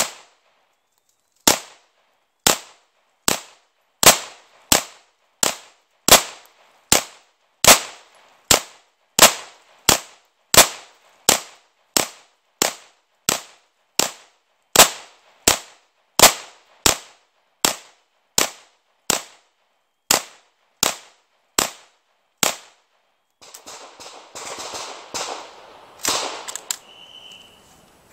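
Chiappa PAK-9 9mm pistol fired semi-automatically: about thirty shots at a steady pace of roughly one every three-quarters of a second, each trailing off in a brief echo. After a short pause near the end come rustling and clatter with a single sharp knock.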